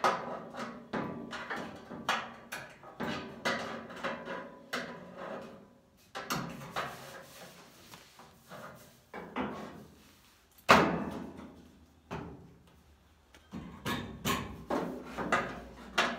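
Heavy-gauge steel roll pan being shifted and pressed against a pickup's rear body: irregular metal clunks and scraping, with one sharp knock a little past the middle.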